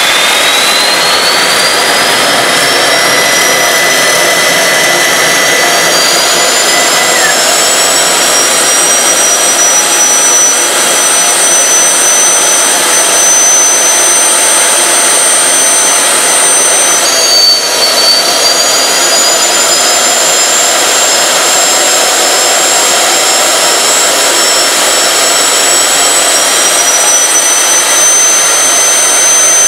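Turbocharger-based homemade turbojet engine running on LPG and kerosene: a loud jet roar with a high turbine whine. The whine rises steadily over the first several seconds as the engine spools up and then holds. A little past halfway it drops suddenly and climbs slowly back up.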